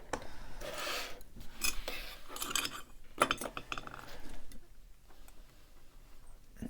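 Small metal tools and a lock body being handled: a run of light metallic clinks and rattles for about four seconds, then only faint handling noise.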